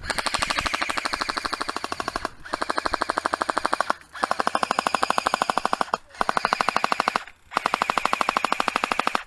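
Airsoft gun firing on full auto in five long bursts, about a dozen shots a second, with short pauses between bursts.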